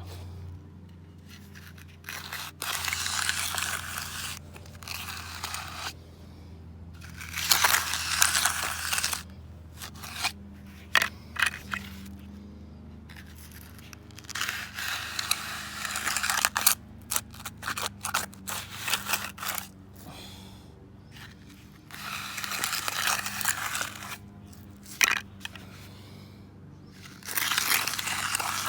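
A hand tool scrapes over concrete in repeated bouts of strokes, each a second or two long, with short pauses between, as cement slurry is worked onto a cracked concrete driveway. A faint steady low hum runs underneath.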